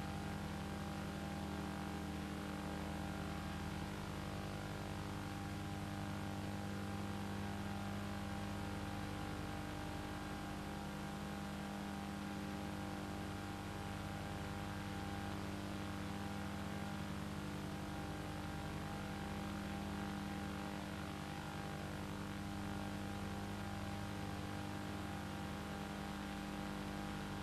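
Steady low hum with a stack of overtones, over a layer of hiss. Nothing from the pottery work itself stands out.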